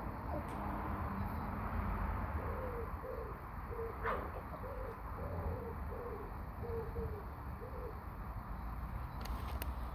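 A bird calling in the background: a run of about eight short low notes, evenly spaced, over a steady low rumble, with a sharp click in the middle and a few faint clicks near the end.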